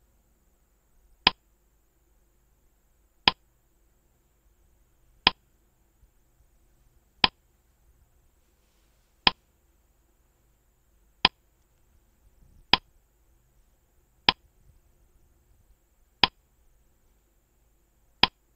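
Quiz countdown timer sound effect: a short, sharp tick about every two seconds, ten in all, with one coming a little early about two-thirds of the way through.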